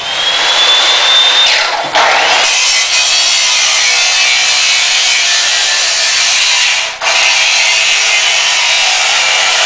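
Metal-cutting chop saw slicing through steel stock for battery-rack legs. The motor comes up with a slight rising whine, then a loud, steady grinding of the blade through the steel, which dips briefly twice, about two seconds in and again near seven seconds.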